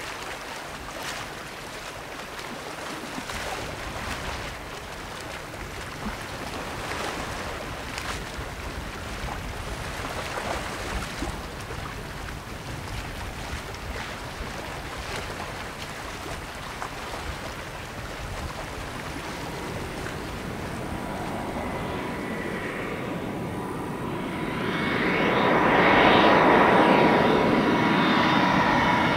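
Wind and waves, then from about three-quarters of the way through the whine of an Airbus A320's CFM56 jet engines on final approach, with steady high tones, growing steadily louder as the airliner nears.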